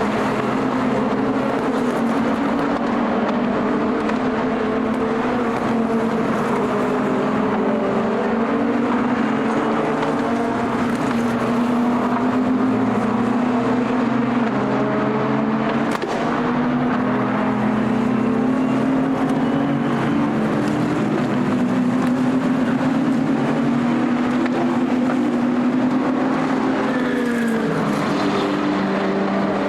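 Endurance racing cars running at speed around the circuit, several engines heard at once in a continuous loud drone, with one car's note dropping in pitch near the end as it passes.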